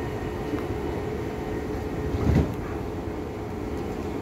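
Steady low rumble of a suburban electric train approaching along the platform track, with a brief low thump about two seconds in.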